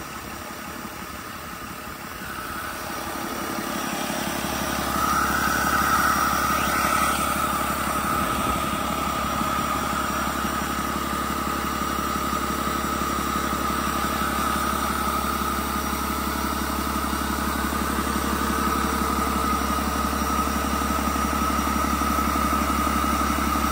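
2010 Cummins ISB 6.7-litre inline-six diesel engine running out of the truck, idling steadily while its oil pressure is shown on a gauge. It grows louder over the first few seconds, and a steady high whine comes in about five seconds in.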